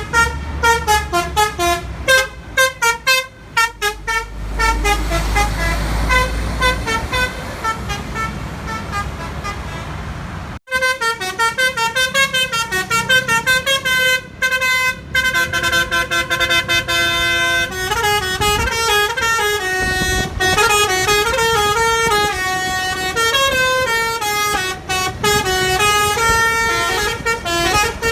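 Bus basuri horn, a multi-tone musical horn, playing a fast melody of stepped notes over the bus's running engine. It cuts off about eleven seconds in, and a second, fuller melody starts.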